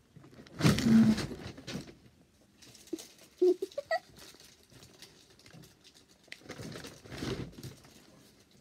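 Rustling and shuffling close to the microphone, in two longer bouts about a second in and about seven seconds in, with a few short knocks and small squeaks between them.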